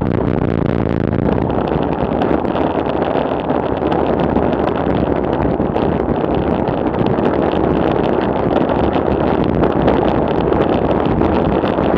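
Wind rushing over the camera microphone on a bicycle descending at about 40 to 50 km/h: a loud, steady rush with no engine in it.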